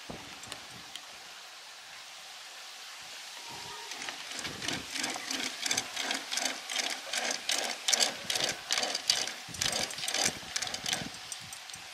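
Mechanical rattling in a quick, even rhythm of about three pulses a second, starting about four seconds in and stopping near the end.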